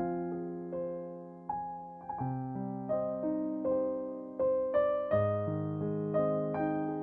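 Background music: a slow piano piece, single melody notes struck about once a second and fading, over lower notes that change about two seconds in and again about five seconds in.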